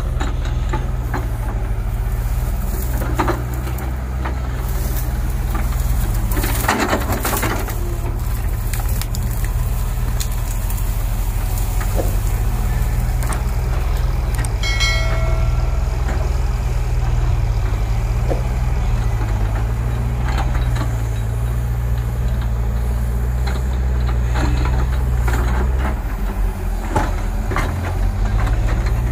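JCB 140 tracked excavator's diesel engine running steadily under load, with branches and brush cracking and snapping as the boom pushes into the trees; the loudest burst of cracking comes about seven seconds in.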